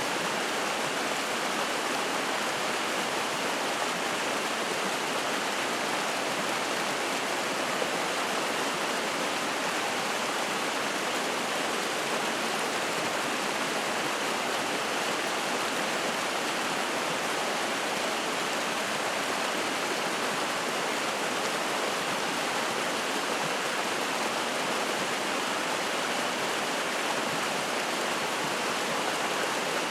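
Spring-fed mountain stream rushing and splashing over rocks in a steady, unbroken wash.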